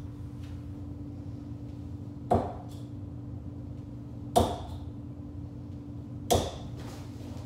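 Three steel-tip darts striking a Prodigy bristle dartboard, one short thud each, about two seconds apart.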